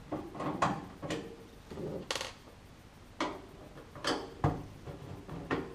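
Screwdriver work on the screws in a microwave's sheet-metal back panel: a string of separate small metallic clicks and clinks, about seven in all, one of them ringing briefly, with a dull knock about four and a half seconds in.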